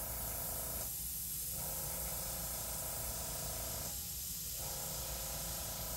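Airbrush hissing steadily as compressed air flows through it while he sprays paint close to the paper.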